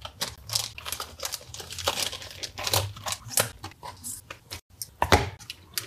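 Irregular crinkling and light clicks of small parts and plastic packaging being handled on a workbench, as a replacement zener diode is readied for fitting.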